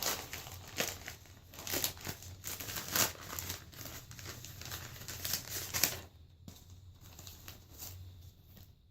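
Packaging wrapper crinkling and tearing as a patch package is opened by hand, dying down to a few faint rustles about six seconds in.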